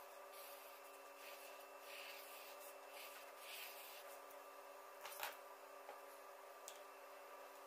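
Faint scratchy strokes of a felt-tip marker drawn across paper, then a single sharp click about five seconds in, over a faint steady hum.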